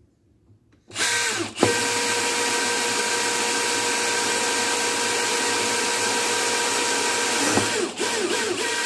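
DeWalt cordless drill on low speed boring a nitrous-nozzle hole through the plastic runner of a FAST LSXR 102 intake manifold. It starts about a second in, dips briefly, then runs with a steady whine that wavers near the end.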